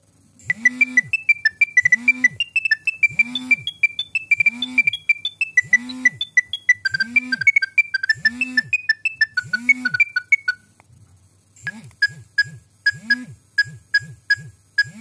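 Nokia 7210 ringtones playing: a quick synthesized melody of short beeping notes over a steady low beat stops about ten seconds in. After a brief pause, a different ringtone starts with evenly repeated notes over the beat.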